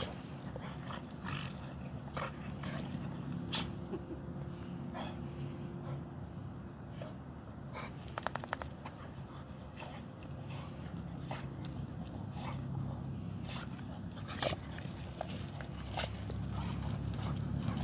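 Two dogs play-fighting on wood-chip ground: scuffling feet and many short scattered clicks, with brief dog whimpers and panting mixed in.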